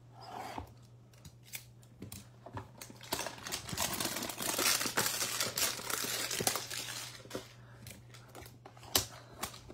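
A hanger box of 2021 Panini Playbook football cards being opened by hand: scattered clicks of handling, then a few seconds of tearing and crinkling of the cardboard and wrapper in the middle, then more light clicks.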